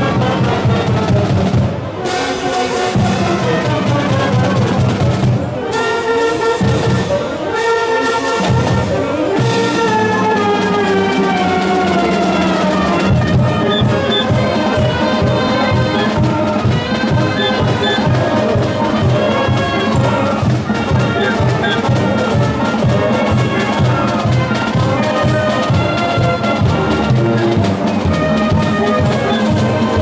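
College marching band playing a tune on clarinets, saxophones, brass and bass drums. The drums keep a steady beat from about a third of the way in.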